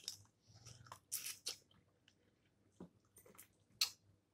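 Snow crab being eaten: faint, scattered crunches and clicks of chewing and of crab shell cracking, about half a dozen short sounds.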